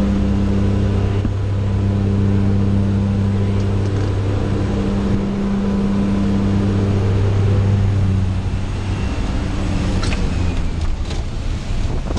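Jump plane's engine and propeller droning steadily inside the cabin, mixed with wind rushing through the open door. About two-thirds of the way through, the drone fades and rushing wind with buffeting knocks takes over.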